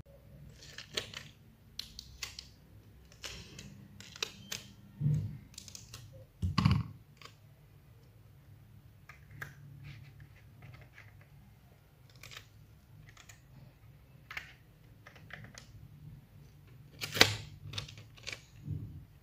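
Hands handling craft materials up close: irregular small clicks, taps and rustles, with a louder knock about six and a half seconds in and another, the loudest, about seventeen seconds in, over a steady low hum.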